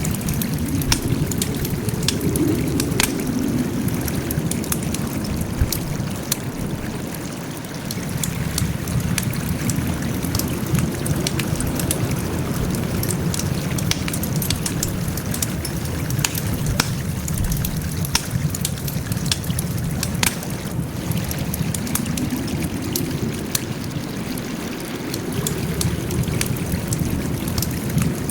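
Wood fire crackling steadily, with frequent sharp pops and snaps over a low rushing sound of the burning that swells and eases every several seconds.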